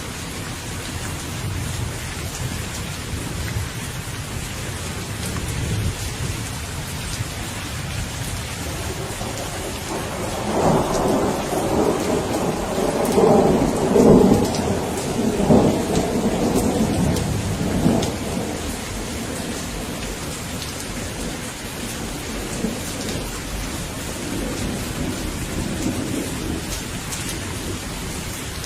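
Steady rain falling, with a long roll of thunder through the middle that swells, crackles, and is loudest about halfway before fading to a distant rumble.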